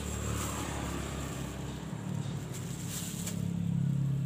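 A motor engine running nearby, a steady low hum that grows louder near the end, with a few light clicks about three seconds in.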